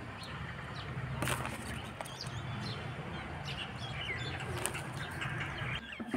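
Small birds chirping repeatedly over a low steady rumble, with a sharp clink about a second in, the kind a steel spoon makes against a steel plate.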